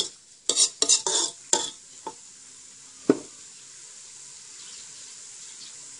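Metal spatula scraping and clanking against a wok as cauliflower and minced pork are stir-fried, a quick run of scrapes in the first two seconds and one more clank about halfway, over steady sizzling.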